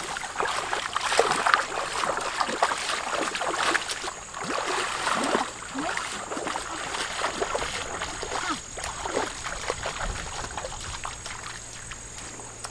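Feet splashing through shallow stream water as two people wade over a rocky bed, an uneven run of small splashes and sloshes that eases somewhat after the first few seconds.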